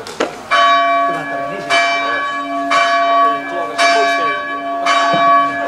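Church bell ringing in steady strokes, about one a second, starting about half a second in, each stroke ringing on into the next.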